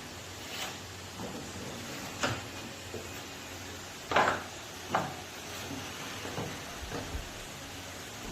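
Woodworking workshop handling noise: scattered knocks and scrapes of wood and tools being set down and moved, with two louder knocks about four and five seconds in.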